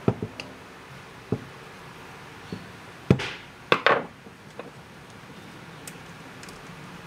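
Handling of a metal angle-grinder chainsaw attachment on a wooden tabletop: scattered light clicks and knocks, then a short cluster of louder metallic clattering from the loose saw chain and bar a little past halfway, while the chain tension is being set.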